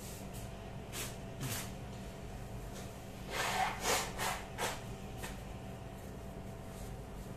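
Someone handling things at a kitchen counter: a couple of light knocks, then a quick run of four or five scraping, rubbing strokes about halfway through, over a faint steady hum.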